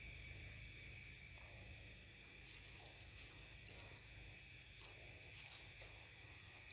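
Crickets chirping in a steady, continuous high-pitched night chorus, with a few faint rustles.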